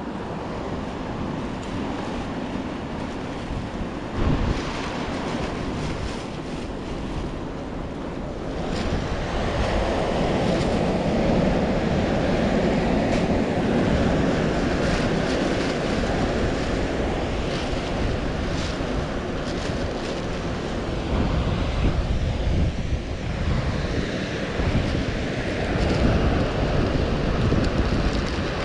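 Steady rush of sea surf with wind buffeting the microphone, growing louder about nine seconds in.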